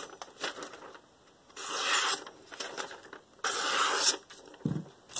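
Kitchenaid 7-inch santoku, just sharpened on a 1000-grit Shapton stone, slicing through thin paper twice to test the edge, each cut a short hiss under a second long. The edge catches at a couple of small hang-ups, as expected before further refining.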